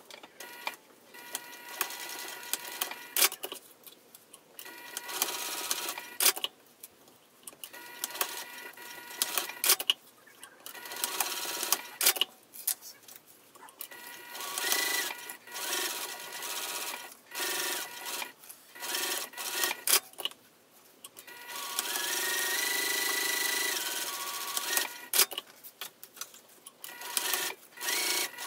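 A Juki sewing machine stitching in short runs that start and stop. Between runs there are clicks and handling sounds, and the longest, steadiest run of about three seconds comes about two-thirds of the way in.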